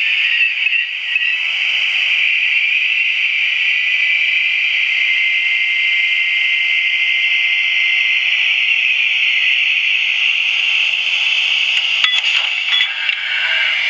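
LokSound v4 sound decoder in an HO-scale Great Northern W-1 electric locomotive model playing its electric-locomotive running sound through the model's small speaker: a steady hissing rush with a faint even whine through it. A few sharp clicks come near the end.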